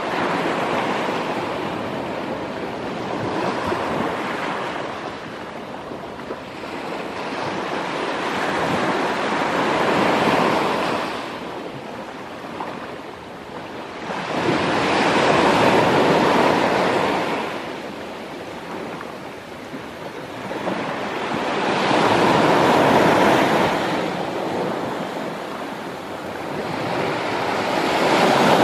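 Small sea waves breaking and washing up the shore, the surf swelling and fading about every six seconds.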